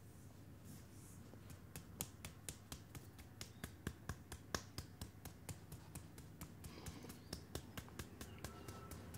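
Hands massaging a bare foot: a fast run of sharp clicks and light slaps of skin on skin, several a second, starting about a second and a half in.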